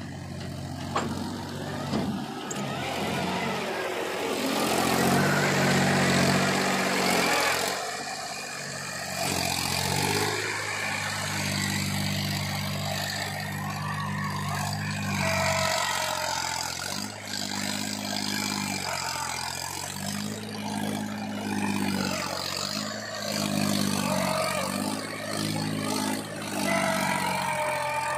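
Mahindra 275 DI tractor's diesel engine revving and labouring as it pulls its trailer through soft mud, the engine note swelling and easing repeatedly. A higher-pitched whine rises over it about halfway through and again near the end.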